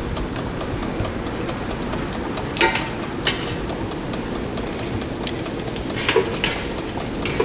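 Steady fan-like hiss of a running kitchen appliance, with a few light clicks and clinks about two and a half, three and six seconds in.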